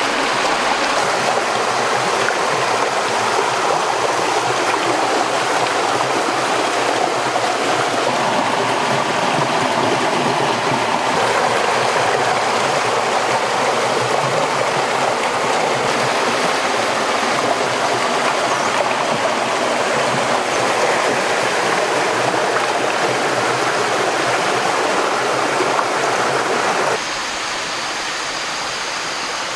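A shallow rocky stream running over stones and small cascades: a steady, loud rush of water. Near the end it cuts off suddenly to a quieter, softer background.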